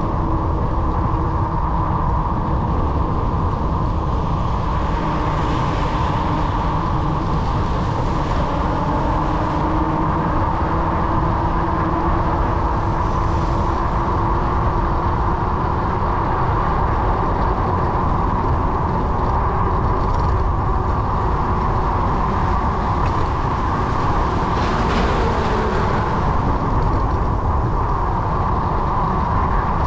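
Steady wind and road noise from a bicycle riding through city traffic, with passing vehicles swelling louder twice, once early and once late.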